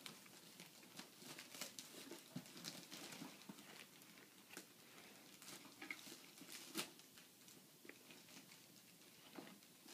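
Wrapping paper faintly crinkling and tearing as a present is unwrapped, in many short, irregular crackles.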